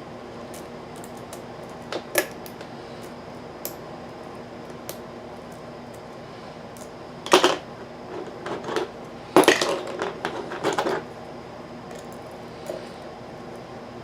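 Small metal clicks and scrapes of lock picks and a tension wrench working the pins of a Nu Set five-pin rim cylinder lock, with two louder bouts of metallic rattling, one about seven seconds in and a longer one around nine to eleven seconds.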